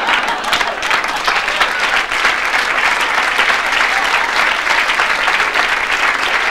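Audience applauding: a steady, even round of many hands clapping.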